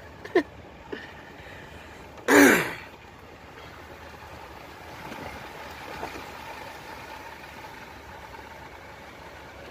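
Steady running and tyre noise of a truck rolling slowly along a snow-covered forest road, heard from inside the cab. About two and a half seconds in, a person gives one short, loud vocal sound falling in pitch, and there is a briefer one just after the start.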